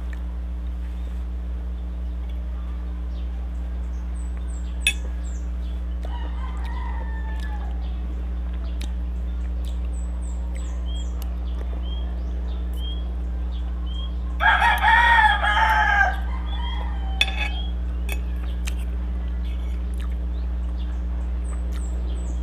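A rooster crows loudly once, about two-thirds of the way through, after a fainter crow earlier on. Small birds chirp, a few sharp clicks of cutlery on a plate stand out, and a steady low hum runs underneath.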